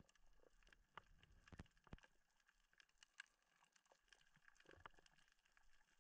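Near silence underwater, with faint scattered clicks and ticks now and then.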